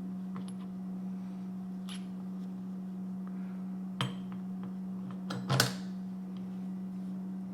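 A few sharp clinks and knocks of small metal parts and hand tools being handled and set down, the loudest cluster a little past halfway, over a steady low hum.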